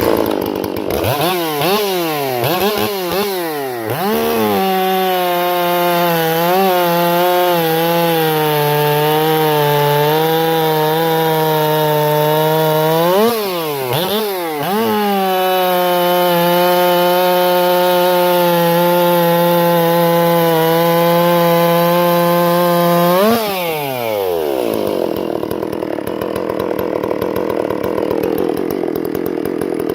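Ported Stihl MS 460 chainsaw, fitted with a Husqvarna 272 piston, starting up and being blipped a few times, then held at high revs for two long stretches with a couple of quick revs between them. Near the end it drops back to a lower, rougher idle.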